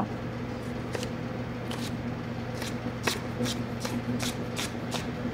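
Chef's knife slicing scallions on a wooden cutting board: a string of light, uneven knife taps against the board that come faster after the first couple of seconds. A steady low hum runs underneath.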